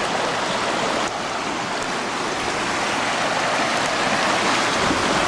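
Shallow creek rushing over rocks: a steady water sound that drops slightly in level about a second in.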